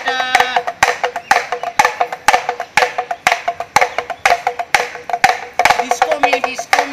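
Damru, a small two-headed hand drum, rattled in quick uneven bursts of sharp strokes, several a second, as a dancing beat.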